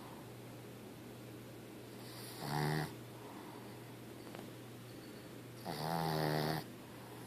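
Sleeping dog snoring: two loud, rough snores about three seconds apart, the second one longer.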